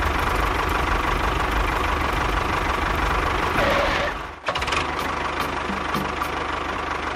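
Small electric motor of a DIY miniature tractor running steadily with a buzzing hum, broken by a short drop about four seconds in before it runs on.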